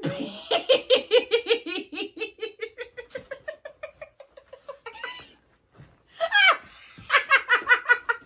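A woman laughing hard in a long run of rapid "ha-ha" pulses that gradually fade, then a second burst of laughter starting about six seconds in.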